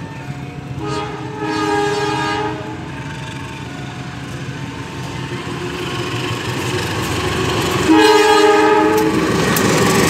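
KAI diesel-electric locomotive running light, sounding its multi-tone horn twice: a blast about a second in and a louder one near the end. Between and after the blasts its engine and wheel rumble grow louder as it draws near and passes.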